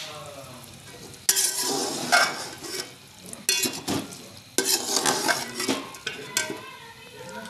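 Metal slotted spoon stirring and scraping chicken and vegetables that sizzle in a large metal pot, in several bursts that start about a second in and come through the middle.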